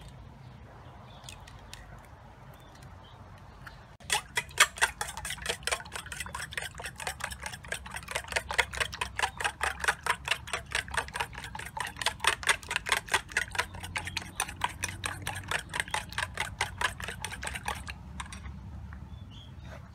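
Metal spoon beating duck eggs in a stainless steel bowl: a fast run of clinking strokes, about five a second, starting about four seconds in and stopping near the end.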